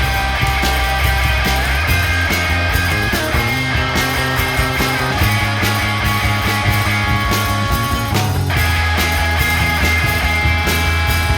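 Four-piece rock band playing an instrumental introduction, with regular drum hits under sustained chords and a steady bass line.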